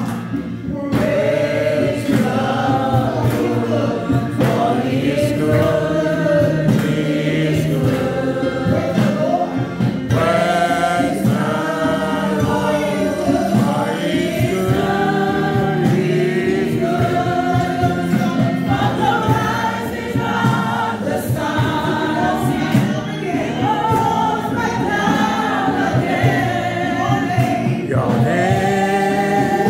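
Congregation singing a gospel worship song together, many voices in a continuous steady chorus.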